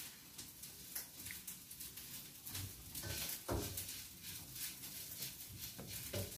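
Faint scattered clicks and light taps, with one duller knock about three and a half seconds in: chopsticks placing tomato slices on a ceramic plate of fried rice.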